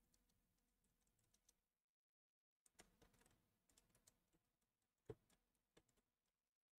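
Faint computer keyboard keystrokes, irregular and scattered, with the loudest click about five seconds in.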